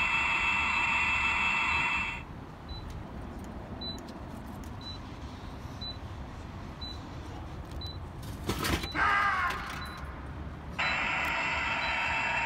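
Ultra Seven character drink vending machine: its speaker plays a steady electronic sound effect for about two seconds, then faint beeps about once a second, then a drink drops into the tray with a clatter about eight seconds in, followed by Ultra Seven's recorded 'jwa' voice. The steady electronic effect plays again near the end.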